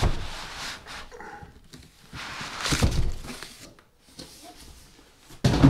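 Cardboard box sliding up off a foam-packed PC case: cardboard and packing foam scraping and rustling in uneven bursts, loudest about three seconds in and again near the end.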